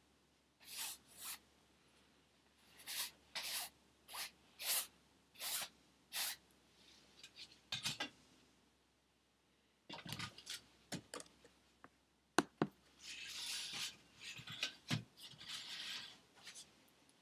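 A dark drawing stick scraped across stretched canvas in a series of short, rasping strokes, each about half a second long. A few knocks and one sharp click come around the middle, then longer scribbling strokes follow.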